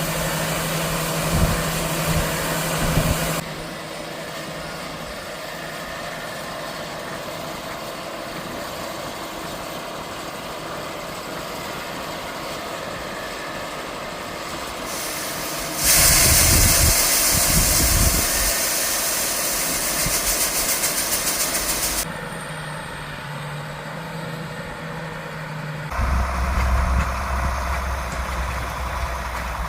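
Harvest machinery engines running steadily, in several stretches that change abruptly. The loudest stretch, a little past the middle, carries a strong hiss.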